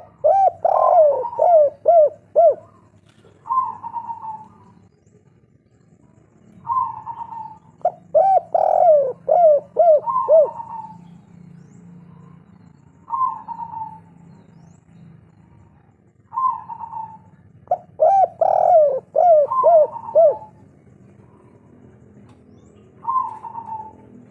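Spotted dove (tekukur) cooing its 'kuk 3' song: three bouts of quick, sliding coos about ten seconds apart, with shorter single coos in between.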